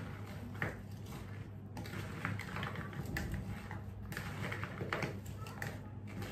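Kitchen handling sounds: scattered light clicks, knocks and rustles of utensils and dishes over a steady low hum.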